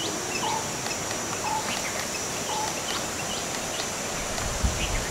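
Wild outdoor ambience: a bird repeating a short call about once a second over a steady high insect drone, with a brief low bump near the end.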